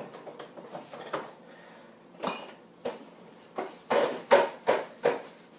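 A series of knocks and clunks, sparse at first and then coming quickly in the second half, as jars, bottles and containers are taken out of a refrigerator door and set down.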